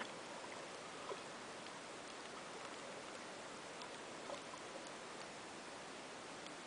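Underwater ambience recorded by a submerged camera over a rocky reef: a steady faint hiss with a few scattered faint clicks.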